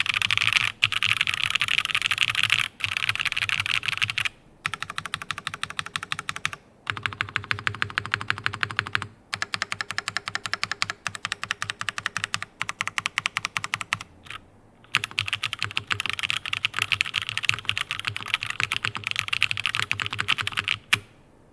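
Rukia 1098 v2 mechanical keyboard with Cherry MX Blossom switches, an aluminium top-mounted plate and GMK keycaps, typed on fast in long runs of rapid key strokes. The runs break off briefly a few times, and now and then a single louder stroke stands out.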